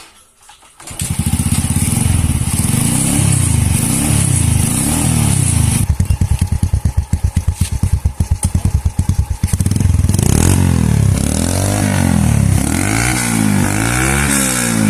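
Honda Astrea Grand's four-stroke single-cylinder engine starting about a second in and running through an original Tiger Revo muffler with its baffles bored out. It idles, runs unevenly with a pulsing beat for a few seconds, then from about two-thirds in is revved up and down several times in quick blips, a sound check of the gutted exhaust.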